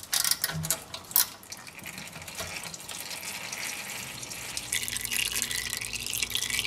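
Old automatic transmission fluid pouring and dribbling in thin streams from a loosened transmission pan into a metal drain pan, during a pan, filter and gasket change. It is a steady liquid splashing that grows brighter about two thirds of the way in, with a couple of sharp clicks near the start.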